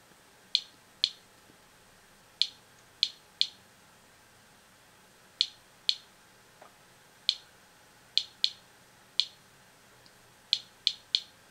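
Inspector Alert Geiger counter clicking at random intervals, about fourteen counts in all, sometimes two or three in quick succession. It is counting background radiation with no sample near it, at roughly 55 to 60 counts per minute.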